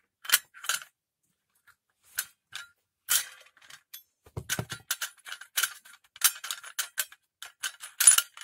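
Steel brush-cutter blade and its mounting cup on a Stihl trimmer's gearbox shaft clinking and scraping as they are shifted by hand to seat the blade: a string of short metallic clicks, sparse at first and coming thicker from about three seconds in.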